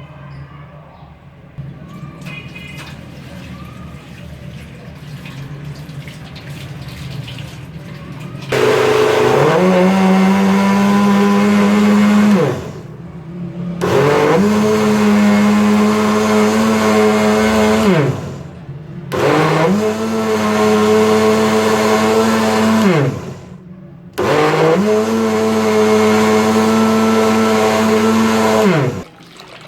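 Electric blender blending strawberries, milk and ice for a shake, run four times for about four to five seconds each. Each run has a motor whine that rises in pitch as it spins up and drops as it stops.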